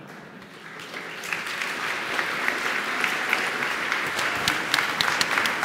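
Audience applauding, building up over about the first second, with sharp individual claps standing out.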